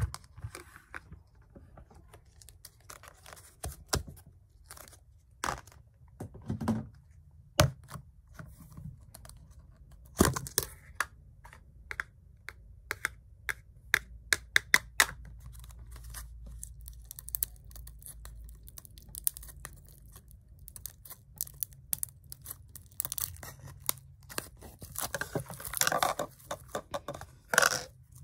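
Hands handling a plastic tub of green slime and its snap-on lid: scattered sharp clicks and taps of the plastic, then a longer stretch of crackly slime noise near the end as the slime is worked and pulled out of the tub.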